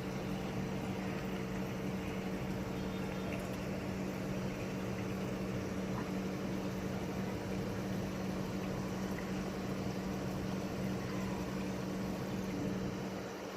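A steady machine hum with a soft, even hiss beneath it. The low hum dips slightly near the end.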